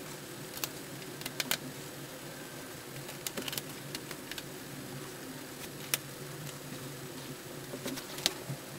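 Scattered light clicks and taps of a small screwdriver and tiny screws on a MacBook Pro's aluminium bottom cover as the cover screws are put back in, over a steady low hum.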